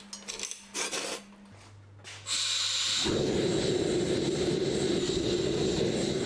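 Steel tray of rusty chain scraping and clinking as it is slid into a small gas forge. After a short pause, gas hisses on and, about three seconds in, the forge burner lights and runs with a loud, steady rush.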